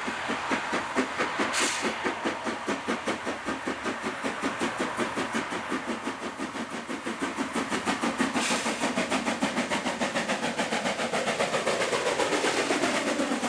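Narrow-gauge steam locomotive working a train, its exhaust beats in a steady, quick rhythm that grows louder as it comes closer. Two short hisses stand out, about a second and a half in and again past the middle.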